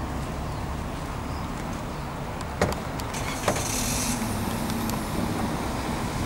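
Steady rumble of road traffic, with two sharp clicks a little under a second apart and a brief hiss around the middle.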